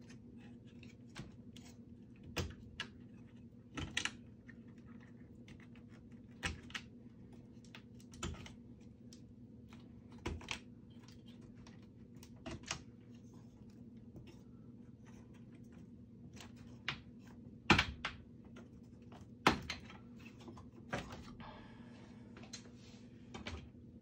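Scattered clicks and knocks of hands working on a rack server's chassis and parts, with two louder knocks about three-quarters of the way through, over a faint steady hum.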